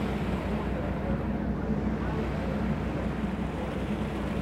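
Ship's engine running with a steady low hum, under wind noise on the microphone and the wash of the sea.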